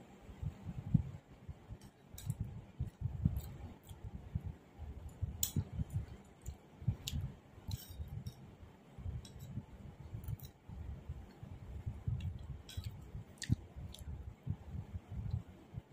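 Close-up mouth sounds of someone chewing a mouthful of soft, syrup-soaked sweets: uneven low thuds with sharp wet clicks now and then.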